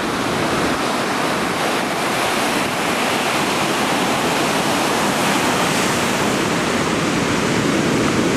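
Ocean surf rushing steadily along a rocky shore.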